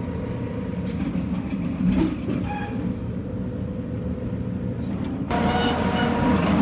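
Machinery running with a steady low rumble and a faint steady hum. About five seconds in, it grows louder and brighter.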